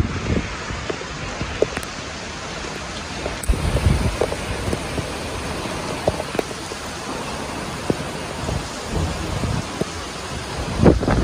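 Heavy cyclone rain pouring down with gusting wind, the gusts rumbling on the microphone, strongest at the start and again near the end, with a few sharp drop ticks.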